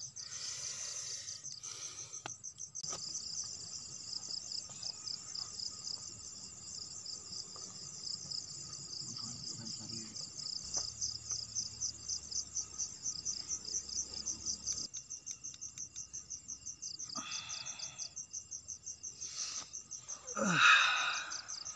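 Night insects chirping in a fast, steady, even pulse that runs on without a break. Near the end a short, louder sound with a falling pitch cuts in.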